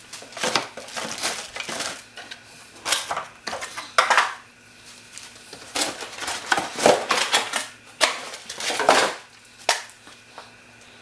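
Handling noise from unboxing a leaf blower: the hard plastic housing of the Ryobi gas jet fan blower knocks and scrapes against its cardboard box, with irregular rustling and clatter as it is lifted out. The noises die down near the end.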